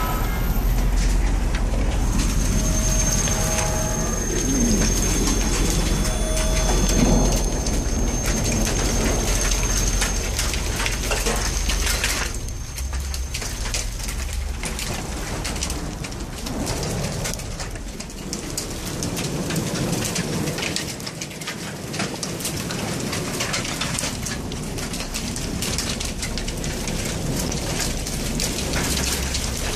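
Heavy rain pouring down in a thunderstorm, with a low rumble through roughly the first twelve seconds that then eases off.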